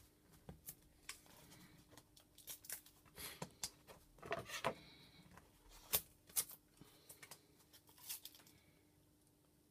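Faint handling sounds of double-sided tape and plastic card: scattered light clicks and taps, with a short tearing sound about four and a half seconds in.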